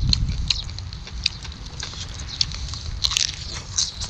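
Loud close-up eating sounds of roasted chicken being chewed and bitten: wet smacking and sharp mouth clicks, several each second, over a steady low rumble.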